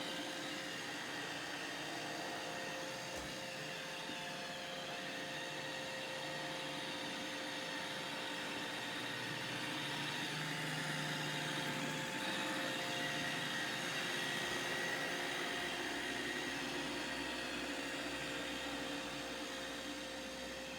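Roomba robot vacuum running, a steady whirring hum with a constant tone.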